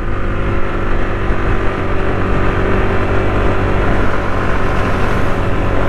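Motorcycle engine running steadily while riding at an even pace, mixed with wind and road noise.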